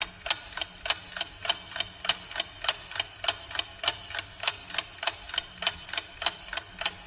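Clock ticking sound effect: a steady tick-tock of about three ticks a second, alternating louder and softer, marking thinking time for guessing a riddle's answer.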